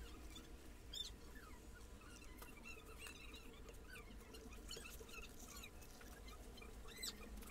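Near silence: faint room tone with scattered faint high chirps and a couple of soft ticks, about a second in and near the end.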